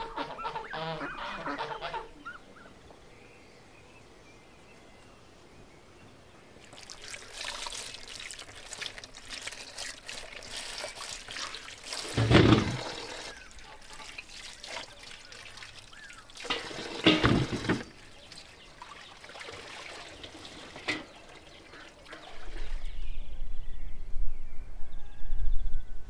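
Geese honk for the first couple of seconds. After a short quiet, water pours and splashes in uneven spells, with two louder surges. A low rumble runs near the end.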